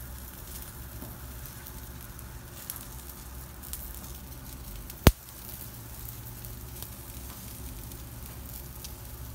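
Yakitori skewers sizzling over a commercial gas grill, with a steady low hum underneath and scattered faint ticks. One sharp, loud crack about five seconds in.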